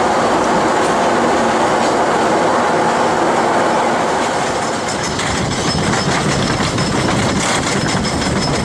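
Wooden roller coaster train running along its track: a steady, loud rumble that turns into a denser clattering rattle about five seconds in.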